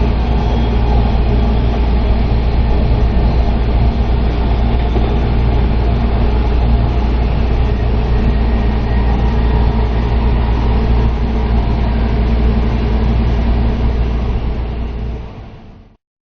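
Steady running rumble of a moving train, heard from on board, with a strong low drone and some steady tones, fading out near the end.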